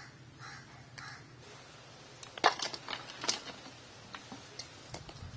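A few sharp metallic clinks and clatters about two and a half to three and a half seconds in, from a metal plate lid being lifted off an aluminium cooking pot, followed by a few lighter ticks. A crow caws once at the very start.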